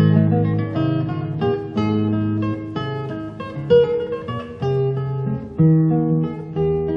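Background music: an acoustic guitar playing a run of plucked notes with occasional strums.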